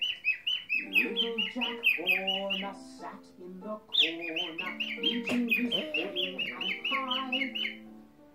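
Cockatiel chirping in quick repeated short calls, about four or five a second, with a brief pause partway through, over background music.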